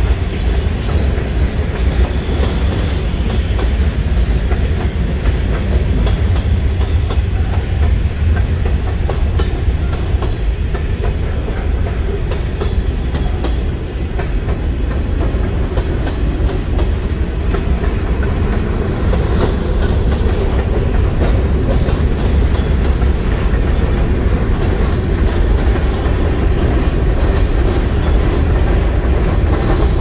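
Freight cars of a mixed freight train rolling past steadily: a constant low rumble with the clack of wheels over the rails.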